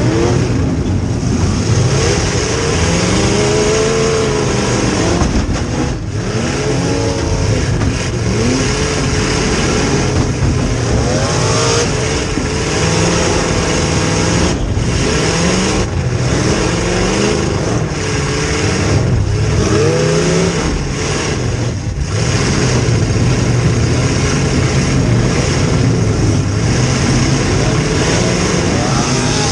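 V8 demolition derby car engine running hard, revving up and falling back again and again as the car manoeuvres, heard loud and close from inside the stripped car.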